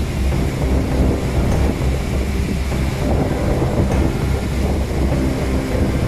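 Steady roar of a large waterfall in full flow, with wind buffeting the microphone.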